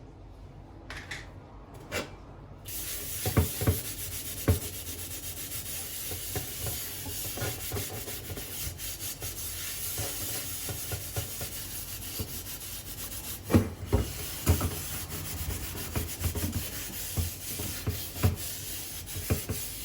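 Steady scrubbing of a hard surface with a cleaning pad or brush, starting a few seconds in, with a few light knocks along the way.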